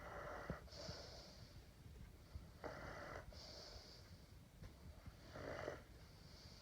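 Saint Bernard dog snoring in its sleep: three slow, faint snoring breaths, each followed by a softer, higher hissing breath.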